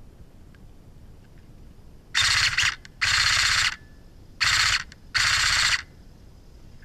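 JG M4 airsoft electric gun firing four short full-auto bursts, each under a second long, the gearbox buzzing through each string of shots.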